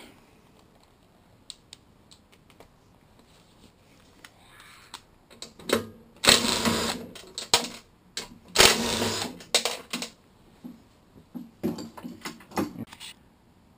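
Socket ratchet wrench clicking fast in two long runs, then in shorter spurts, as bolts are loosened.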